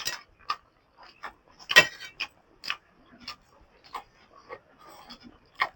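A person eating noisily: irregular wet smacks and chewing clicks from the mouth, the loudest about two seconds in.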